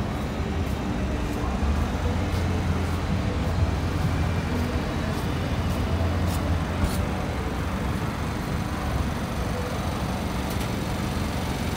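City street traffic noise with a steady low engine hum that eases off about seven seconds in.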